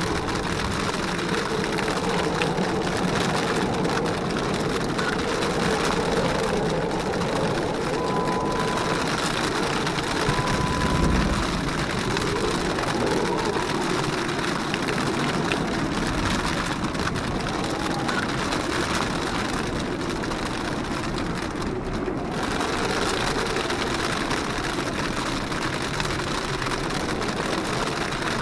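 Jeep Wrangler JKU engine running steadily as it crawls up a rocky trail, under a constant hiss of rain. Two short beeps come about eight and ten seconds in.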